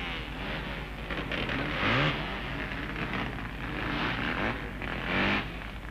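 Racing car engine heard from on board, accelerating hard, its pitch rising in repeated sweeps and dropping back at each gear change.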